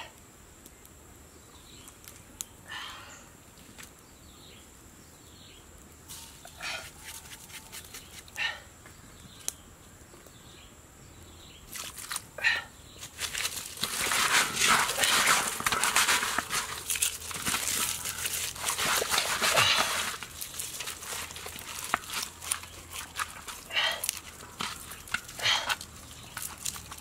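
Hands handling bamboo shoot pieces and lemongrass stalks in a large metal wok: scattered scrapes and clicks, then several seconds of dense rustling and crinkling about halfway through.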